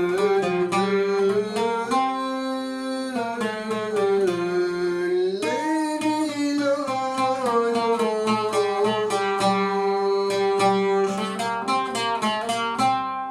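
A Turkish art song in the uşşak makam: a single voice sings a long, wavering, ornamented melody line over a plucked string instrument picking repeated notes.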